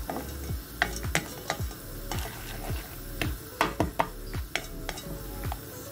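Wooden spoon stirring unpopped popcorn kernels through oil and melted sugar in a cast-iron pot: irregular clicks and scrapes of the spoon and kernels against the pot, a few a second.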